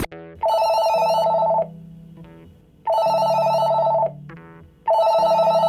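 Electronic desk telephone ringing with a fast warbling trill: three rings, each a little over a second long, about two seconds apart.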